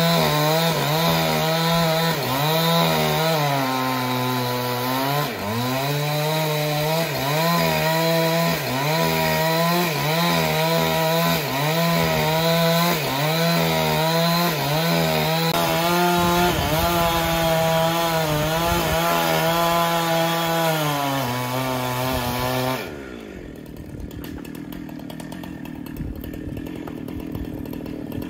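Powered wood saw cutting, its motor note dipping over and over as the blade loads up in the wood. About 23 seconds in the motor's pitch drops away sharply and the sound falls to a much quieter level.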